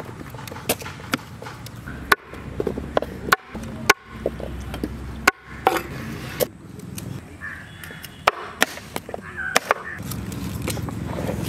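Knife chopping with sharp, irregular strokes, about one or two a second with short pauses.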